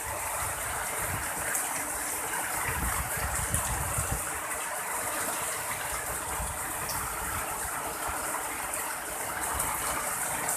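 Heavy rain pouring steadily in strong wind, with uneven low buffeting of wind on the microphone.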